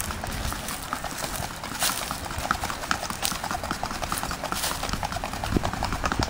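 Horse's hooves striking a packed dirt track under a rider, a rapid, even run of hoofbeats.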